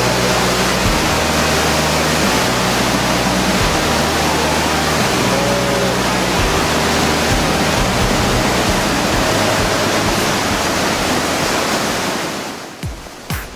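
Rushing whitewater of the Niagara River rapids, a loud steady rush. Near the end it fades out.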